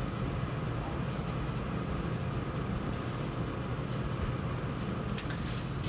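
Steady low background room noise, with a few faint brief rustles about five seconds in; no distinct joint crack stands out.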